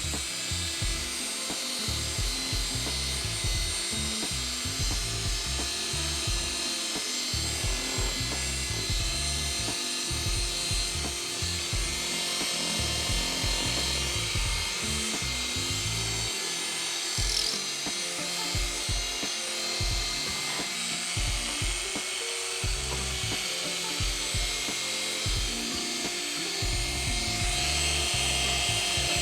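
Handheld polishing machine buffing a plastic lens with polishing compound: a steady running whir with the pad rubbing over the plastic.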